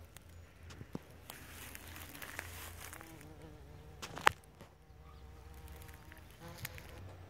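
Bumblebees buzzing, a pitched hum that comes through most clearly in the second half. One sharp click about four seconds in.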